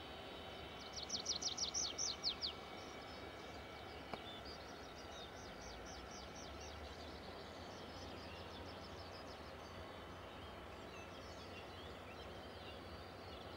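A songbird singing a fast run of about ten quick descending notes about a second in, then a fainter run of notes a few seconds later, over a faint steady background hum.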